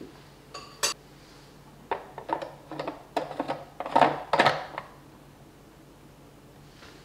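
Plastic stopper being handled and fitted into the neck of a vacuum flask: a scatter of light clicks, then a quick run of plastic clicks and scrapes, loudest about four seconds in.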